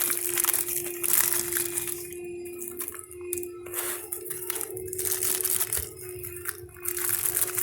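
Irregular crinkling and rustling of packaging being handled, typical of new ratchet wrenches being unwrapped, over a steady faint hum.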